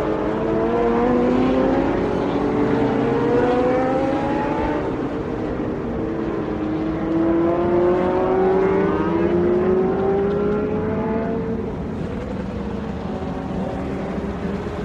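MotoGP racing motorcycle engine at high revs, its pitch climbing steadily as it accelerates: one long climb in the first few seconds, then a drop and a second long climb that tails off near the end.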